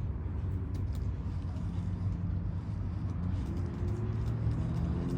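Steady low motor rumble with a slight rise in pitch about three seconds in.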